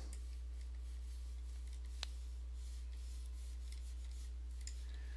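Quiet room tone over a steady low hum, with a single faint click about two seconds in.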